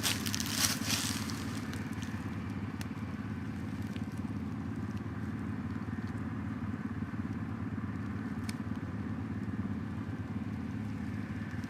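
Four-wheeler (ATV) engine running steadily with an even, low drone, with a little crunching of brush underfoot at the start and a couple of faint ticks.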